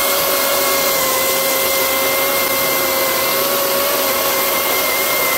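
Milwaukee M18 Fuel cordless chainsaw running at full speed with a steady electric-motor whine. Its Oregon 3/8 low-profile chain is cutting through a log, with a constant rasp of chips.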